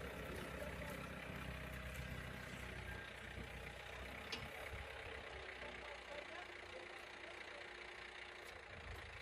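A motor vehicle's engine running at low revs, its rumble thinning out about six seconds in, with a single sharp click near the middle.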